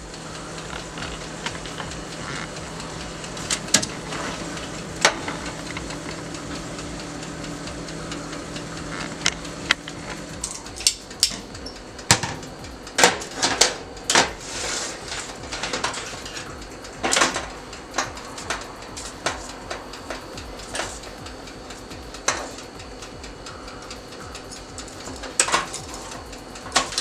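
A steady low electrical hum that cuts off about ten seconds in, then kitchen clatter: utensils and dishes knocking and scraping in irregular clusters.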